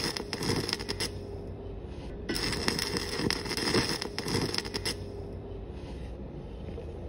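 Stick-welding arc from a 7018 electrode crackling in two runs. The arc breaks off about a second in, strikes again a second later and burns for nearly three seconds before stopping. The short bursts with the arc released between them are the tack technique used to melt into the thicker angle iron without blowing holes through the thin 16-gauge sheet.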